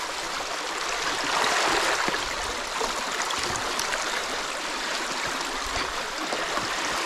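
Creek water rushing steadily through a freshly breached beaver dam.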